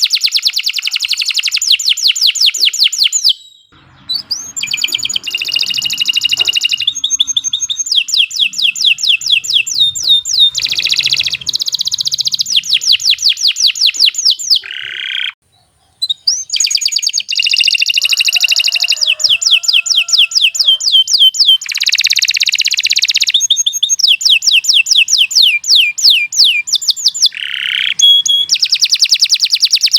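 Domestic canary singing a long song of rapid trills, each phrase a fast run of repeated high notes, one phrase following another, with two short breaks, about four seconds in and about halfway through.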